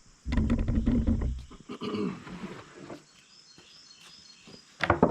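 A thick plywood board scraping as it is laid down and slid into place, a loud low rasp about a third of a second in, then lighter scrapes and a sharp knock near the end.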